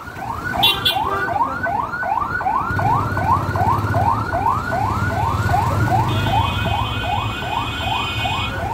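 Electronic siren wailing in fast, repeated rising sweeps, about three a second, without a break. Underneath, a motorcycle engine runs for a few seconds mid-way.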